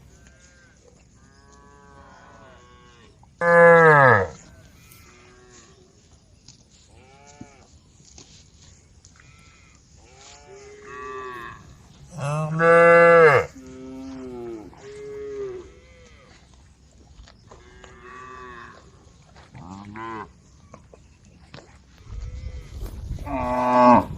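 A herd of cattle mooing, several cows calling one after another at different pitches. Three loud, drawn-out moos come about four seconds in, about thirteen seconds in and near the end, with fainter moos from other animals in between.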